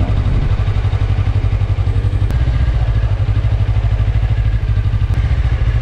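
Motorcycle engine running at a steady speed, a loud low rumble with an even, fast pulse and no revving up or down.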